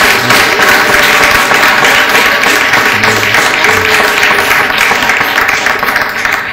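Crowd of wedding guests applauding, a dense clatter of many hands clapping that tapers off near the end.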